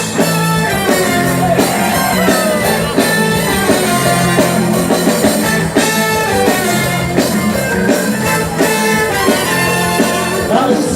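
Live band playing an upbeat dance number with a steady drum beat, bass and lead instruments, the opening of the song before the verses begin.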